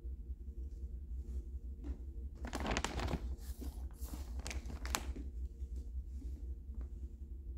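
Plastic wrapping of a diaper pack crinkling as it is handled, a couple of seconds of rustling with several sharp crackles in the middle, over a steady low hum.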